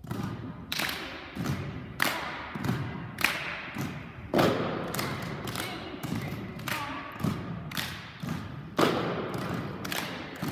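A group's plastic cups hit on a hardwood gym floor in unison, alternating with hand claps in a steady cup-rhythm beat, about three strokes every two seconds. Each stroke echoes briefly in the hall.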